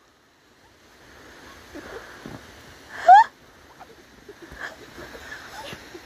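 A person's brief, high, rising squeal about three seconds in, over soft rustling as a body moves in deep snow.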